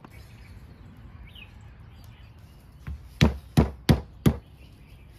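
A large kitchen knife chopping on a thick round wooden chopping block. There is one light knock about three seconds in, then four hard chops in quick succession, roughly a third of a second apart.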